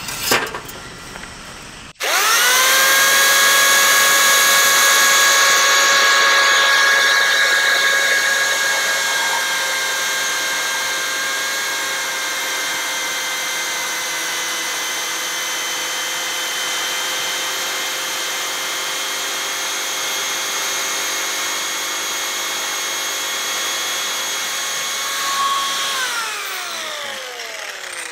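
Parkside PSTK 800 C3 800 W jigsaw starting up abruptly and running steadily with a high motor whine as it saws through a wooden batten, loudest in the first few seconds. Near the end it is switched off and its whine falls away as the motor winds down.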